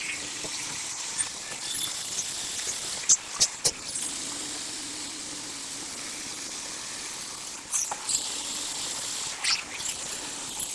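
Woodworking bandsaw running with a steady high hiss, broken by a few short clicks: three in quick succession about three seconds in, and more near the end.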